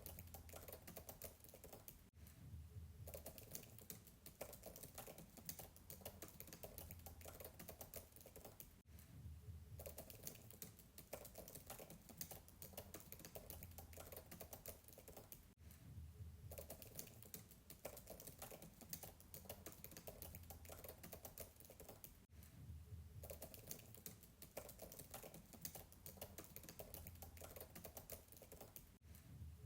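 Fast typing on a MacBook keyboard, heard faintly from a distance: a dense run of soft keystrokes broken by short pauses about every seven seconds.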